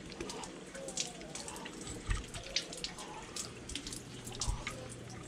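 Tap water running into a concrete sink, with irregular splashes and drips as hands and fish are rinsed under it.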